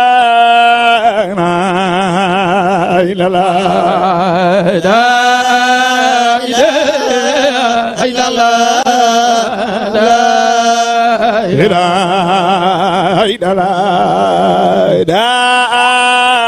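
A solo male voice chanting a Sufi zikr in long, drawn-out melismatic phrases with heavy vibrato. A steady low note is held underneath the voice.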